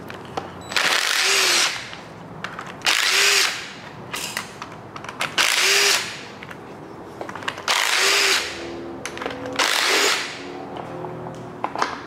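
DeWalt cordless driver with an 8 mm socket backing out intake manifold bolts on a 5.3L LS V8. It runs in five short spurts of about a second each, a couple of seconds apart.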